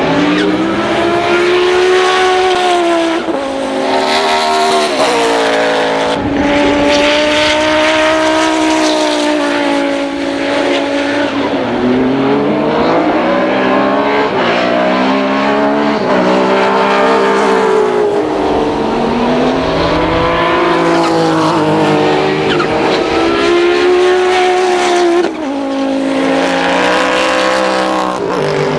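Turbocharged five-cylinder engine of an Audi 200 quattro race car running hard. Its pitch climbs through the gears and drops at each shift or lift, again and again, as the car laps the circuit.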